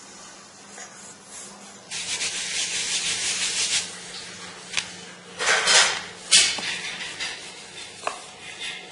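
Wooden rolling pin rolling out chapati dough on a stone slab: a dry scraping rub in uneven back-and-forth strokes, starting about two seconds in.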